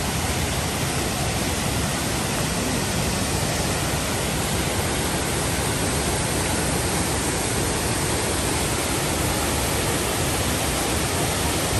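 A waterfall pouring into a rocky creek: a steady, even rush of falling and running water.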